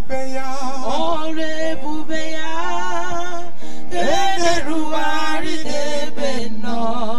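Live church worship music: a lead singer on a microphone sings a slow, wavering praise song, with held notes sustained underneath and light percussion.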